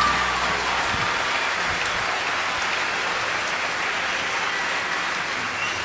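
Concert audience applauding, as the band's last held chord dies away about a second in.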